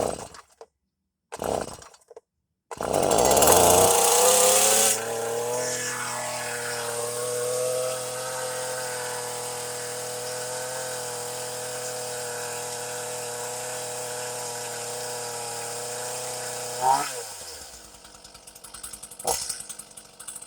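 Stihl two-stroke chainsaw being pull-started. Two short starter-cord pulls come first. About three seconds in the engine catches and runs fast and loud for a couple of seconds, then settles to a steady idle. About three-quarters of the way through it winds down and stops.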